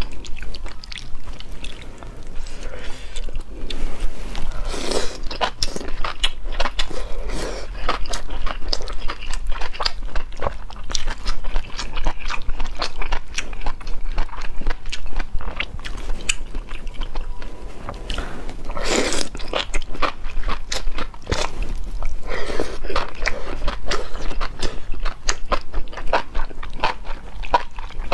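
Close-miked eating: chewing fatty beef, enoki mushrooms and noodles in spicy broth, with many wet mouth clicks and a few louder slurps.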